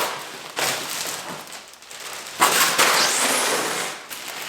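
Metal parts of a miter saw stand and their packaging being handled. There is a burst of clattering and rustling about half a second in, and a louder, longer one from about two and a half seconds.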